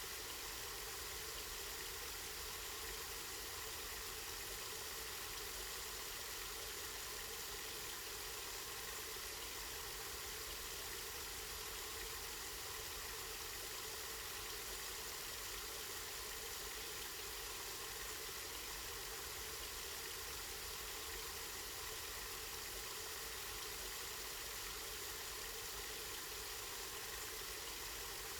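Spring water running and splashing steadily: an even, unbroken rush, brightest in the higher pitches.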